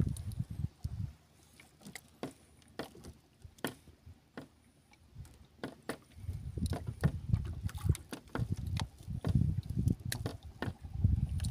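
Water lapping against the hull of a small outrigger boat, with scattered small clicks and taps. A low rumble comes in gusts from about halfway through.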